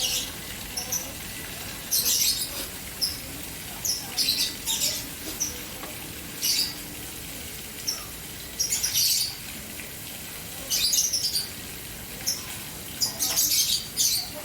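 Birds chirping in short, high bursts every second or so over the steady splashing of a fountain.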